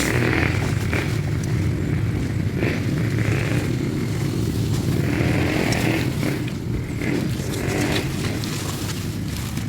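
A vehicle engine running, a steady low rumble.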